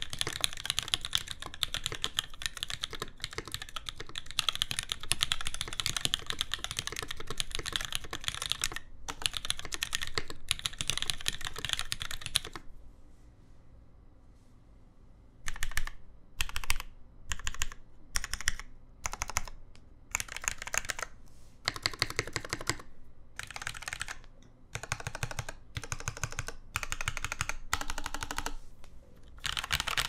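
Custom SINGA Jaguar tenkeyless mechanical keyboard with lubed vintage Cherry MX Black linear switches on an aluminium plate, GMK keycaps, no case liner: fast continuous typing that stops about halfway through, then after a pause of about three seconds, keys pressed in short separate bursts.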